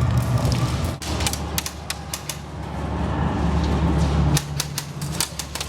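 Airsoft guns firing in two quick runs of sharp pops, about six a second, over a steady low rumble.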